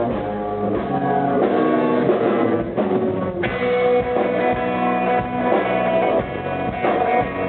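Rock band playing live: guitar and drum kit, with the sound growing fuller and brighter about three and a half seconds in.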